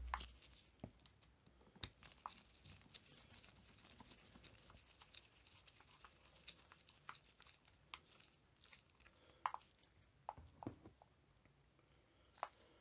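Faint, irregular clicks and scrapes of a screwdriver driving screws into a petrol strimmer's plastic throttle-handle housing, along with the plastic parts being handled.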